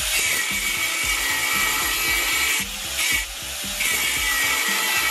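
A grinder grinding off a metal piece that was keeping the Miata's exhaust hanger from fitting: a steady, harsh grinding with a constant high whine. It lets up briefly about two and a half seconds in, then bites again.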